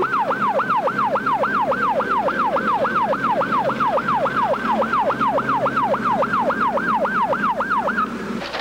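Fire truck siren sounding a rapid yelp: a wail that rises and falls about three to four times a second, cutting off near the end.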